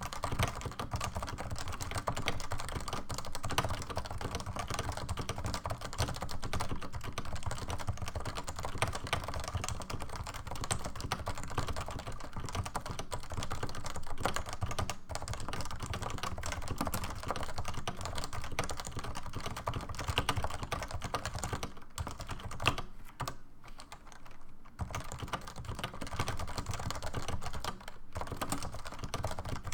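Typing on a stock Realforce keyboard with 55 g Topre electrostatic capacitive switches: fast, continuous keystrokes, with a brief lull about two-thirds of the way through.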